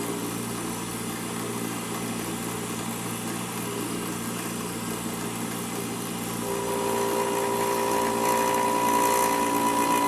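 Milling machine running with its cutter taking a pass across the wall of a round tube, a steady motor hum. About six and a half seconds in a higher ringing tone joins and the sound grows louder as the cutter bites.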